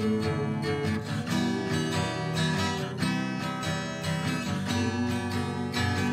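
Steel-string acoustic guitar strummed in chords, an instrumental passage with no singing.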